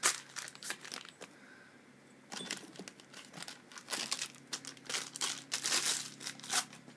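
Packaging crinkling and rustling in short bursts as the paintball marker's spare barrels are taken out and unwrapped, with a brief lull about a second in.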